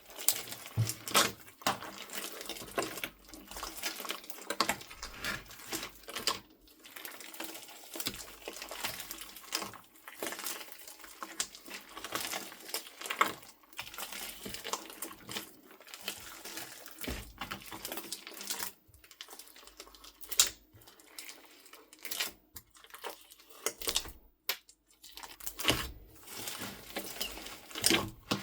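Slime mixed with soft clay being squeezed and kneaded by hand, giving a dense run of irregular wet clicks, pops and crackles with brief pauses.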